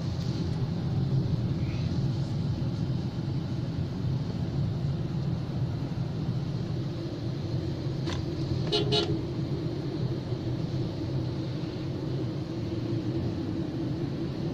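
Steady low rumble of engine and tyre noise inside a car driving on a highway. About nine seconds in, a vehicle horn toots briefly.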